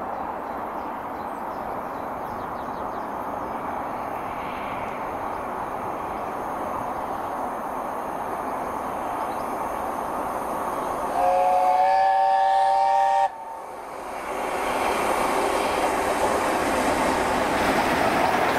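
LNER A4 steam locomotive 60007 Sir Nigel Gresley approaching with a steady rushing noise, then sounding its three-note chime whistle for about two seconds, which cuts off suddenly. The locomotive and its coaches then pass close by with loud, rising rail and wheel noise.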